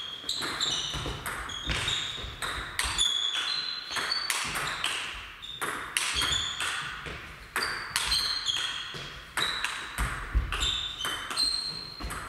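Table tennis ball clicking off bats and the table in a rally, several sharp clicks a second, each with a short high ring.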